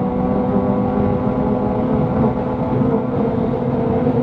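Ski-Doo Renegade Backcountry 600 E-Tec snowmobile's two-stroke parallel-twin engine running at a steady speed while riding, its pitch holding level.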